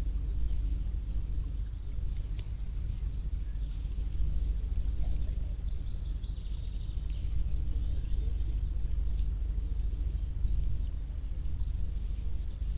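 Ambient outdoor sound: scattered bird chirps over a steady low rumble.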